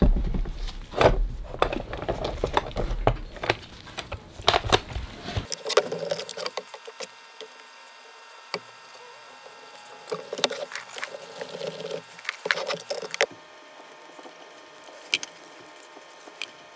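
Clicks and knocks of a clear plastic storage box and its clip-on lid being handled on a wooden table, dense for the first five seconds or so. After that come quieter scattered clicks and plastic taps as epoxy resin is poured from a plastic jug into a plastic measuring cup and stirred with a plastic stick.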